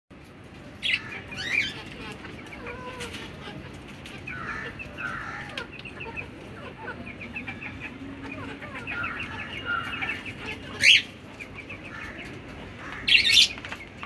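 Country chickens clucking and chirping as they feed, with many short calls throughout and a few sharp, loud squawks about a second in, near eleven seconds and just before the end.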